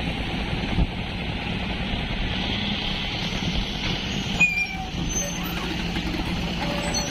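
Hyundai 210 LC7 long-boom excavator's diesel engine running steadily, with a sharp knock about a second in and a louder one about four and a half seconds in, followed by a brief squeal.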